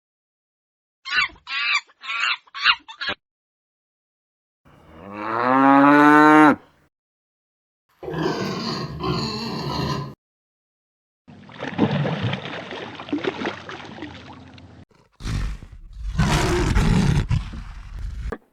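A run of separate farm animal calls with silent gaps between them: four short calls about a second in, then a long pitched call that fits a cow mooing, then longer, rougher calls in the second half.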